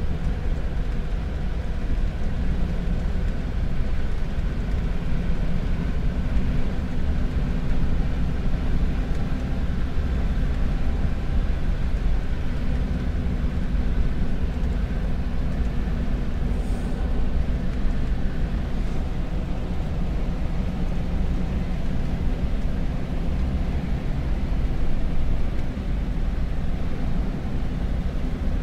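A carbureted Ford's engine running steadily with road noise while it cruises along, with no change in speed.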